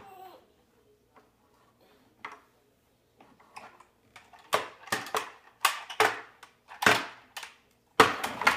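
Plastic toy tractor banged and knocked against a wooden cabinet top. A few scattered sharp knocks come first, then quick runs of clattering knocks from about halfway through, the loudest near the end.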